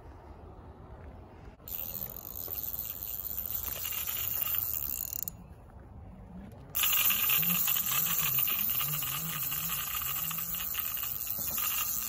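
Fishing reel's drag buzzing as a hooked catfish pulls line off the spool, in two long runs with a short pause between, the second louder.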